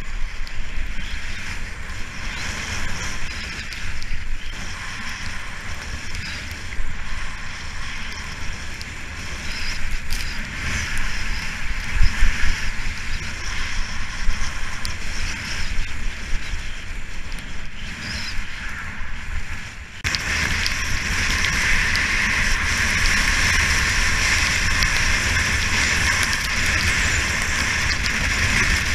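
Skis scraping and hissing over fresh snow during a fast downhill run, with wind rumbling on the GoPro's microphone. About twenty seconds in, the hiss turns abruptly steadier and louder.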